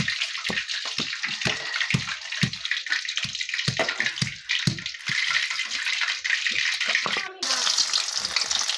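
Garlic cloves pounded with a hand stone on a stone grinding slab (sil-batta), about two dull knocks a second, over the steady hiss of rain. Near the end it changes abruptly to chicken legs sizzling as they fry in hot oil.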